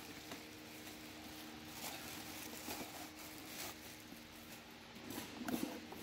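Plastic packaging crinkling and rustling in irregular bursts as a part is unwrapped by hand, over a steady low hum.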